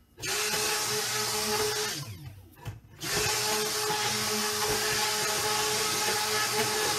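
Immersion stick blender running in a stainless steel pot of raw cold-process soap batter (oils and lye solution), blending it toward a light trace. It runs steadily for about two seconds, cuts off and winds down, then starts again about a second later and runs on.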